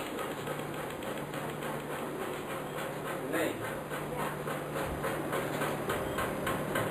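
Steady background hiss with a constant low hum and faint, regular ticking, about three ticks a second, as picked up by a handheld camcorder's microphone.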